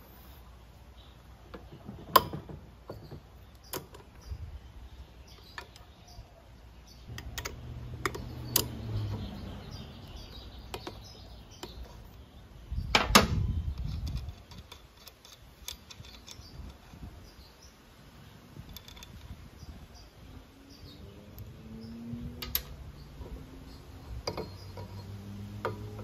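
Scattered sharp metal clicks and clanks of a breaker bar, clutch holder tool and clutch parts being handled on a Honda PCX 150's belt drive, with one loud knock about thirteen seconds in.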